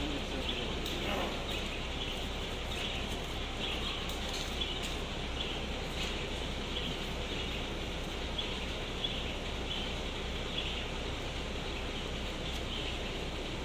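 Small birds chirping, short high calls repeating every half-second or so, over a steady low engine hum and street hiss.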